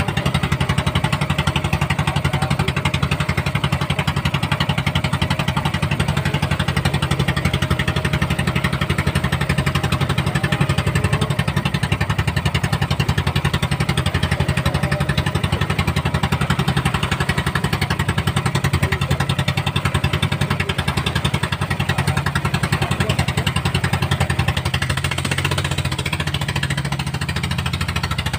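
Small inboard-style engine of a motorized outrigger boat running steadily under way, a loud, even, rapid pulsing throb that eases a little near the end.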